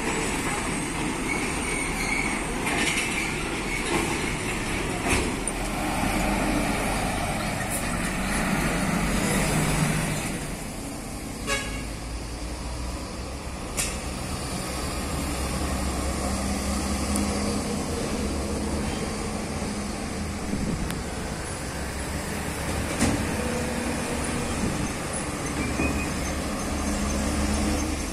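Heavy diesel trucks, a tractor unit with a lowbed trailer and an Iveco dump truck, driving past with their engines running. A truck horn toots.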